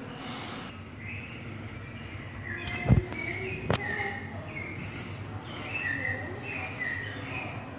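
Short high chirps over a steady low hum, with a thump about three seconds in and a sharp click just under a second later.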